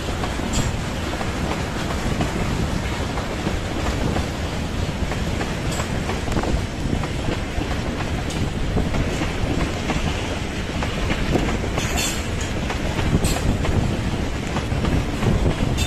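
Freight train of railway tank cars rolling past, a steady rumble of wheels on the rails, with a few brief sharp clicks.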